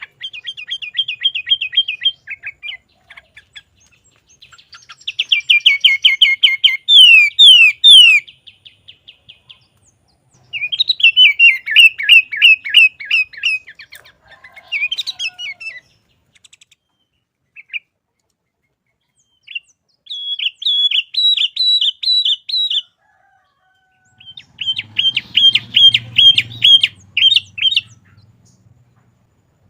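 Sooty-headed bulbul (kutilang) singing loudly in rapid runs of quickly repeated notes, several phrases of two to three seconds each with pauses between them.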